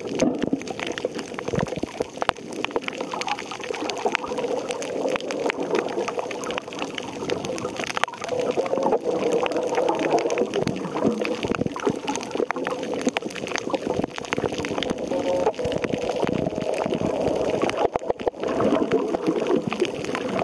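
Underwater sound of moving seawater, heard muffled through an underwater camera's housing: a steady wash with many small clicks and crackles.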